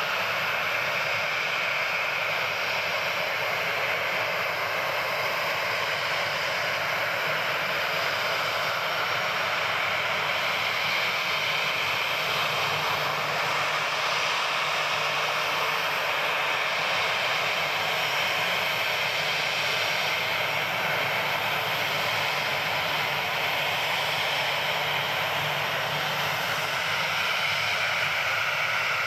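Jet airliner's engines running steadily at low power as it taxis.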